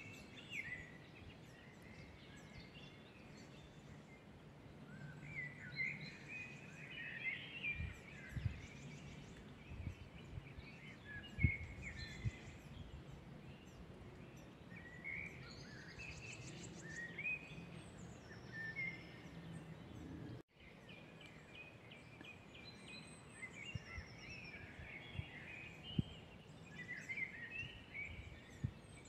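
Several woodland songbirds singing and calling over one another in short chirping phrases and high trills, over a low steady background hiss. A few low knocks come about a third of the way in, and the sound drops out for an instant about two-thirds through.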